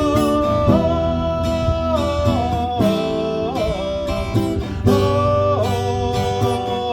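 Song with strummed acoustic guitar and a melody line held for about a second at a time, with no singing.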